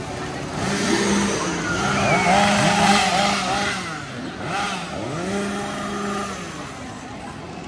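Chainsaw engines revving up and down again and again, their pitch rising and falling, loudest about two to three seconds in.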